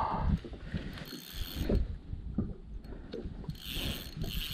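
Spinning reel being cranked against a hooked fish on light line, its gears and clicks ticking irregularly, over an uneven low rumble.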